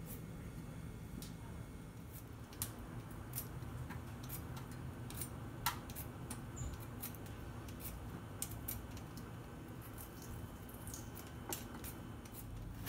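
Raw potatoes being peeled by hand over a steel sink: irregular light scrapes and clicks of the blade on the skin, over a low steady hum.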